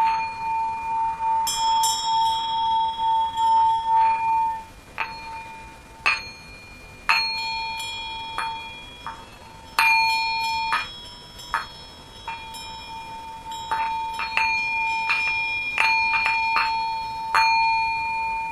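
Tibetan singing bowls ringing: a held, wavering tone for the first few seconds, then a series of light strikes, each leaving a clear ringing tone with high overtones.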